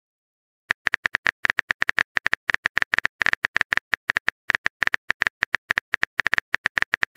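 Simulated phone keyboard typing clicks from a texting-story app: a rapid, uneven run of short, bright ticks, about eight a second, starting a little under a second in, as a message is typed out letter by letter.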